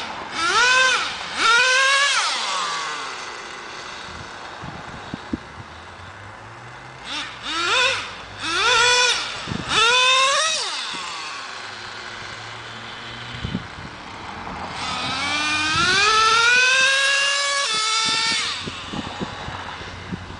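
Traxxas Jato 3.3 RC truck's small two-stroke nitro engine revving hard in short rising bursts as the truck accelerates: three quick bursts at the start, four more around the middle, and one long climbing run in the last third that holds high before dropping away. It settles to a low idle between the bursts.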